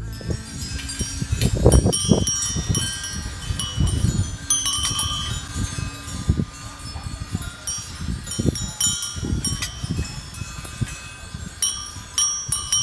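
Many small hanging brass bells and heart-shaped brass plaques jingling and clinking, with ringing tones overlapping throughout, over gusts of wind rumbling on the microphone.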